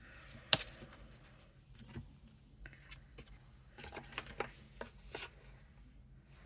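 Playing cards being handled on a tabletop: a sharp tap about half a second in, then scattered light taps and rubbing as cards are slid and laid down.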